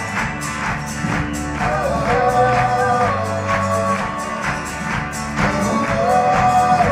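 Live full-band folk-rock song: voices singing long held notes together over strummed acoustic guitar and drums with a steady beat.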